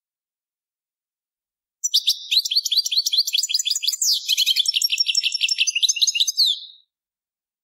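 European goldfinch singing one song phrase, starting about two seconds in: a fast run of twittering, chattering notes that ends on a falling final note.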